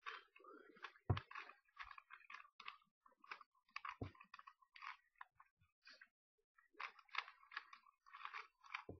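Official Rubik's Cube being twisted by hand: an irregular run of quick plastic clicks and scrapes as the layers turn, with a few duller knocks about a second in, near four seconds and at the very end.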